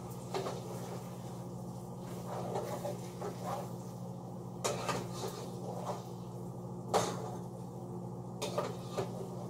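A spoon stirring a pot of simmering beef picadillo, with scattered knocks and clinks against the pot, the loudest about seven seconds in. A steady low hum runs underneath.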